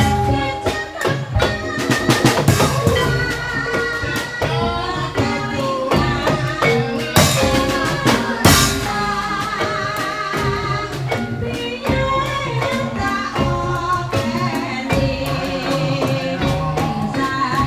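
Live Javanese incling folk music: a traditional percussion ensemble with drums and struck pitched instruments playing continuously, with a wavering singing voice over it.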